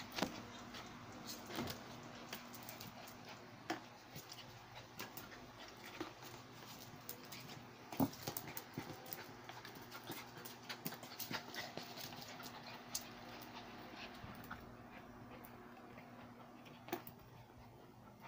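Two dogs play-wrestling on a hard floor: scattered clicks of claws and paws skittering, with scuffling, over a faint steady hum. The clicks thin out near the end.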